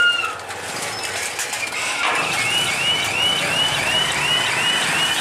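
Level-crossing warning hooter sounding a repeated rise-and-fall electronic warble, about two and a half times a second, starting about two seconds in, over a low rumble. A short high chirp comes right at the start.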